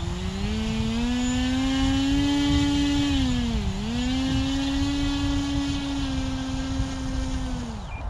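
A small RC plane's electric motor and propeller spooling up to a high whine for a take-off run from a starter trolley: the pitch rises over the first two seconds, holds, dips briefly about halfway, recovers, then winds down and stops just before the end. A low rumbling runs beneath it.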